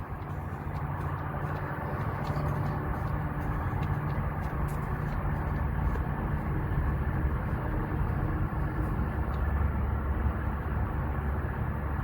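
Steady low rumble of an idling engine, with a few faint light clicks.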